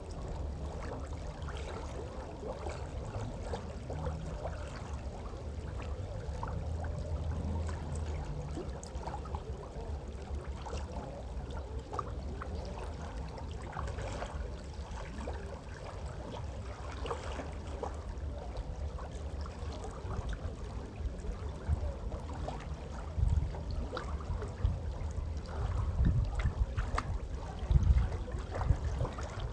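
Mountain river running: a steady rush of water. Several louder low rumbles come in over the last few seconds.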